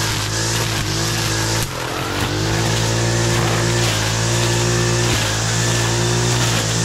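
Brushcutter engine running at high revs while cutting through dense undergrowth, its pitch sagging and recovering as the line bites into the growth, with a sharp dip about two seconds in.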